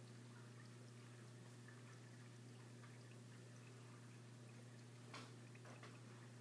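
Near silence: the faint steady low hum of a running reef aquarium, with faint water trickling and a couple of small clicks about five seconds in.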